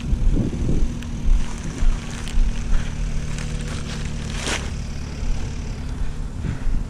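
Wind buffeting the microphone over a steady distant motor drone, with a crinkle of plastic wrap about four and a half seconds in as the wrapped exhaust pipe is handled.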